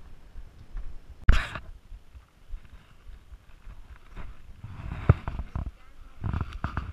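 Footsteps of hikers on a dusty dirt-and-rock trail, with the taps of trekking poles and the rustle of gear. The loudest sound is a brief scrape about a second in, and a sharp tap comes about five seconds in.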